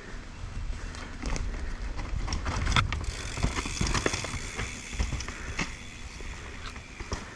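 Commencal Meta AM 29 mountain bike descending a rough trail at speed: a steady low rumble of tyres on dirt, broken by many sharp clacks and knocks as the bike rattles over rocks and roots.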